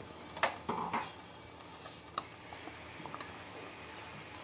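Wooden spatula stirring thick butter chicken gravy in a pan, with a few light clicks and knocks of utensils against the pan, the sharpest about half a second in and a small cluster near one second.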